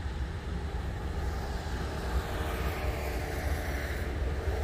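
Wind buffeting the microphone: a steady, fluttering low rumble with a faint hum in the background.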